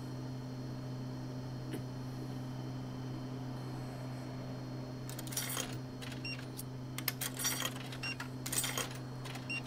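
Vending machine humming steadily; from about five seconds in, coins clinking and clicking as they are fed into the slot, with a few short high beeps.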